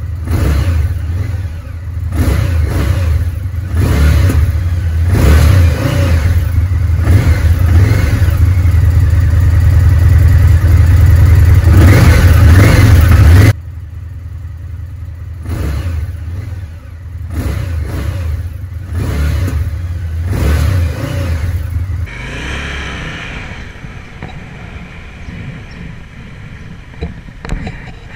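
Indian FTR1200's V-twin engine revved in repeated throttle blips while the bike stands still. The sound drops abruptly about halfway through, then the engine is blipped a few more times. Near the end it runs more evenly and quietly as the bike rides along the road.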